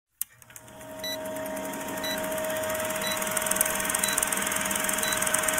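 Film-countdown sound effect: a film projector running with a rapid, even clatter and a steady hum, and a short high beep once a second. It fades in over the first second.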